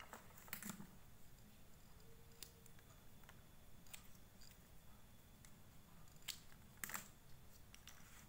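Faint, scattered small clicks of hands handling the electric motor's wiring, with a few sharper clicks.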